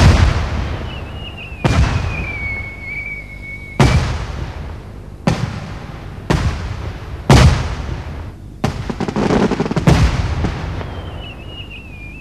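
Fireworks display: about eight sharp bangs a second or so apart, each fading out, with crackling about nine seconds in. A high whistle drops slightly in pitch about a second in and again near the end.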